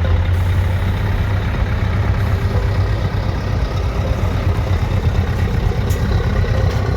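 Heavy truck's diesel engine with an open-pipe exhaust, running with a deep, steady rumble.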